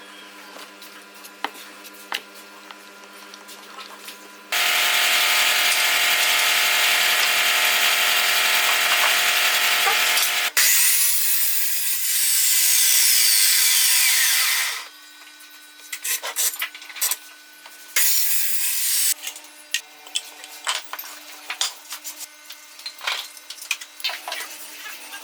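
Power saw running: one loud stretch of about six seconds, a sharp click, then about four more seconds with a pitch sliding steadily down. After that come short bursts and clicks.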